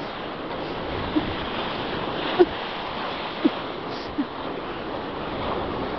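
Steady rushing hiss of sliding fast down a snow slope, with wind and snow noise on the microphone. A few short, faint voice sounds cut through it.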